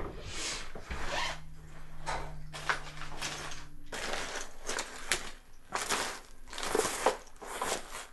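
An irregular run of short rustling, scraping swishes, quick and uneven, with a faint low hum under the first half.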